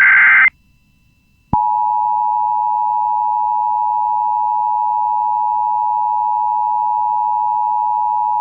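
The end of an Emergency Alert System SAME header data burst, a short electronic squeal, then about a second of silence. Then the EAS two-tone attention signal (853 and 960 Hz together) comes in suddenly and holds steady, announcing an emergency message.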